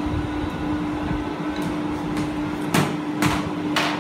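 Kitchenware being handled as batter is readied for pouring: three short scraping knocks in the second half, over a steady low hum.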